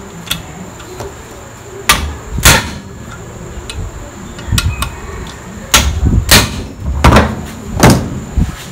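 Sharp metal knocks and clinks, about six, loosely in pairs, as tools and bolts are handled against the engine casing and stand.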